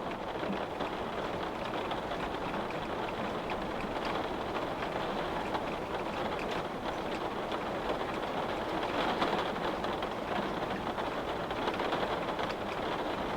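Steady rain pattering on a window pane: a continuous hiss with many small drop ticks.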